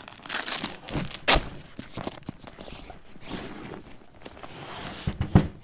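A coated-fabric recovery gear bag being handled and turned over on a table: rustling and scraping of the bag, with a sharp knock about a second in and a few thumps near the end.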